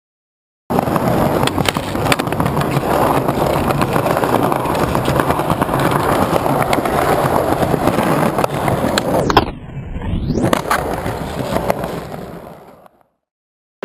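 Skateboard rolling on rough concrete: a steady gritty rumble of the wheels with occasional sharp clicks. It dips briefly about ten seconds in, then fades out shortly before the end.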